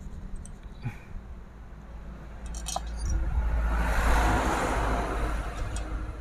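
Light metallic clinks of small chainsaw parts and screws being handled. About three seconds in, a low rumbling rush swells up and then fades near the end.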